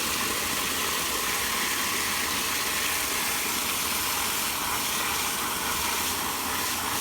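Steady hiss of mains-pressure water spraying from a live, open supply pipe at the water meter.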